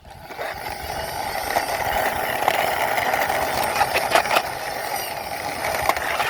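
Small plastic toy car wheels rolling steadily over a surface as the toy is pushed by hand, with a few light clicks and knocks along the way.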